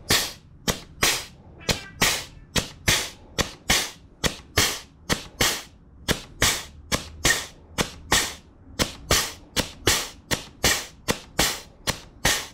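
Grease gun pumping in quick, even strokes, one sharp snap about two and a half times a second. It is forcing grease through the zerk into the plastic bushings of a zero-turn mower's front caster wheel, which is holding a lot of grease.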